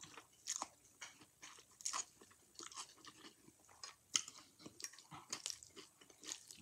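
A person chewing a mouthful of Chinese noodles and sweet and sour chicken, close to the microphone: faint, irregular wet mouth clicks and smacks.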